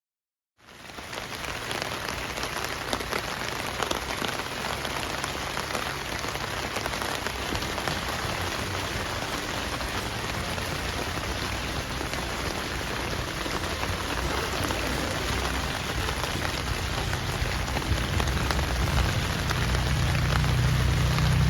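Steady rain falling, with dense patter, coming in abruptly about half a second in. A low rumble builds and the whole sound grows louder toward the end.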